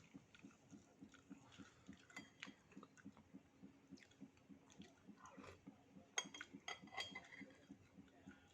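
Close-miked chewing of soft durian and mung-bean dessert: wet mouth sounds at a steady rhythm of about three chews a second, with a few sharper clicks around two-thirds of the way in.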